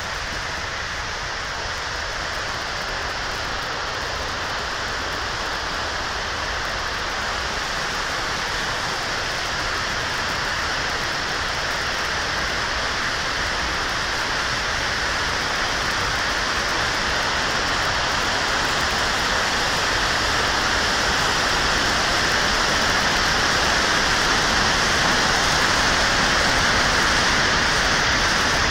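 Floodwater pouring over a curved concrete dam spillway and churning in the whitewater below: a steady rushing noise that grows gradually louder.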